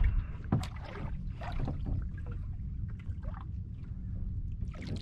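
Ambient sound aboard a small fishing boat on calm water: a low steady rumble with a few light knocks scattered through it.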